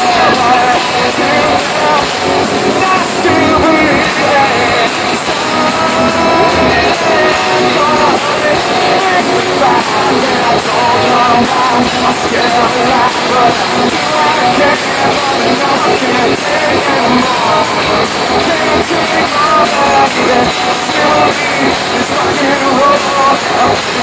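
Live hard rock band playing loud, with distorted electric guitars and a drum kit.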